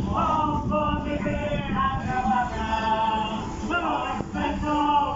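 Male singing with long held notes, over a steady low rumble.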